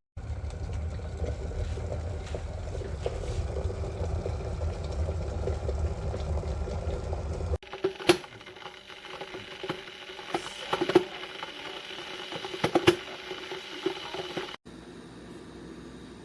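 Stainless steel electric kettle rumbling steadily as the water heats toward the boil. After a sudden cut, a few sharp clinks and knocks over a quieter background.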